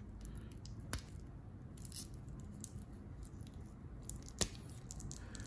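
Cotton-gloved hands handling a stainless steel watch bracelet and its clasp: soft glove rustle with scattered faint clicks of metal links, and a sharper click about four and a half seconds in.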